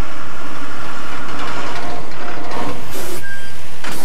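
School bus running, a steady engine and rattling noise, with a brief hiss about three seconds in and a sharp noise near the end.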